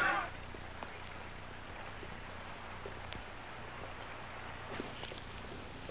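Night insects chirping in two steady, repeating rhythms: a high pulsing trill and a quicker row of short chirps just below it.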